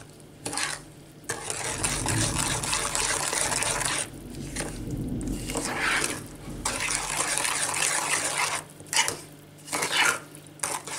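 Metal spoon stirring a thick, gritty mix of sugar, coconut flakes and milk in a small saucepan: a wet scraping and swishing against the pan in several bursts with short pauses.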